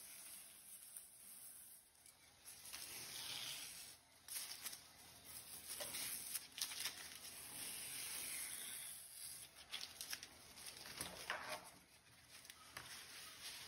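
Masking tape being peeled off the edges of watercolor paper: quiet stretches of tearing, rising and falling as strips are pulled away, with scattered small sharp crackles as the tape is handled.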